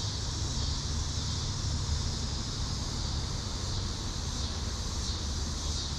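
Steady riverside ambience: an even high hiss over a low rumble of wind on the microphone.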